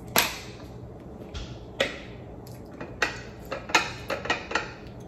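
Mussel shells and plates being handled by hand while eating: a series of about eight sharp clicks and clinks, the loudest right at the start and several close together in the second half.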